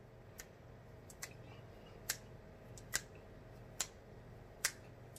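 Fingers snapping in a slow, steady rhythm, about seven sharp snaps a little under a second apart, over a faint low room hum.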